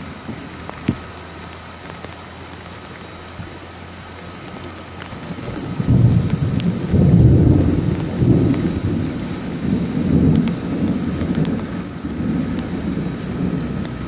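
Heavy rain falling steadily, then a loud rolling peal of thunder about six seconds in that rumbles on in low waves to the end, following a close lightning flash.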